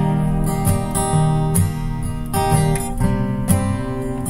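Instrumental passage of a country song: acoustic guitar strumming chords with a bass line and a steady beat, no singing.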